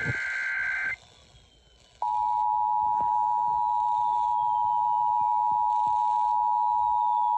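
NOAA Weather Radio Emergency Alert System signal. A buzzy two-pitch digital data burst (the SAME header) ends about a second in. After about a second of quiet, a steady single-pitch alert tone starts and holds, announcing a warning.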